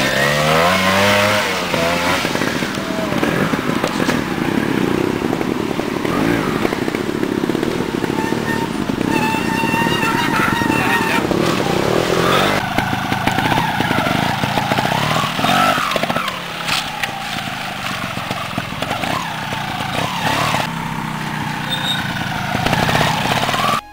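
Two-stroke 250cc single-cylinder engine of a TRS One trials motorcycle being ridden, its revs rising and falling sharply about a second in, then blipping and varying with the throttle over rough ground.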